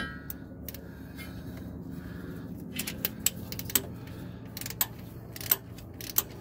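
Hand tools clicking and clinking as a ratchet with an extension and hex-bit socket is worked on a Smart car's transmission filler plug. There is a sharp clink at the start, then irregular single clicks.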